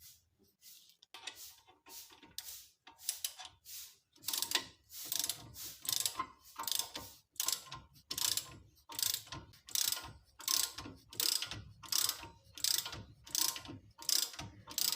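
Wrench turning the bolt of a homemade nut-and-bolt tool, pushing a brake caliper piston back into its bore: a rhythmic clicking stroke about twice a second, faint and uneven for the first few seconds, then steady and louder.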